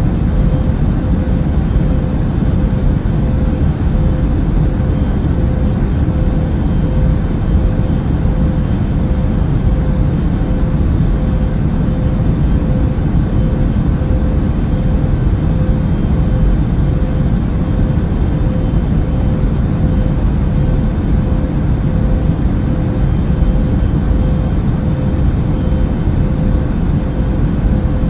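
Airbus A380 cabin noise in cruise flight: a steady, deep drone of engine and rushing air with a faint constant hum over it.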